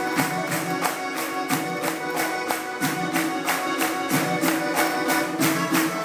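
Fast Caucasian folk dance music: held melody notes over a steady, driving beat of about four sharp strikes a second.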